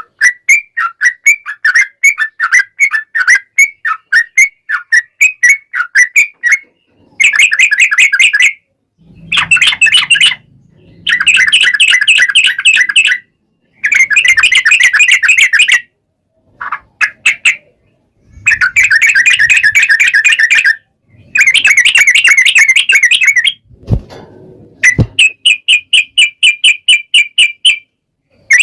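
Yellow-vented bulbul (trucukan) singing a long, rapid chattering song ("ropel panjang"). The song comes in repeated bursts a second or two long, with short pauses between. This is the lure song used to get other bulbuls to answer.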